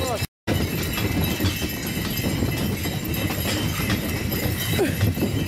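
A pair of horses trotting in harness, pulling a sleigh over packed snow: quick, irregular hoofbeats. The sound cuts out for a moment near the start.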